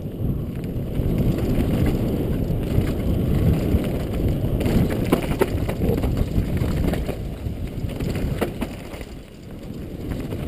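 Downhill mountain bike descending over loose rocky gravel: a steady rumble of tyres and frame on the stones, with scattered sharp knocks and rattles from about halfway through as the bike hits rocks.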